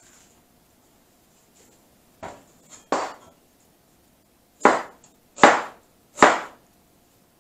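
A Chinese cleaver chopping an onion on a plastic cutting board: five sharp chops. Two lighter ones come about two seconds in, then three louder ones near the end, about three-quarters of a second apart.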